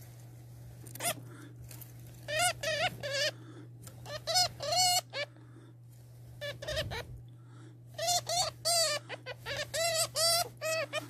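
Hamster squeaking: runs of short, wavering squeaks in quick succession, starting about two seconds in, pausing for a couple of seconds in the middle, then coming thicker near the end. A low steady hum runs underneath.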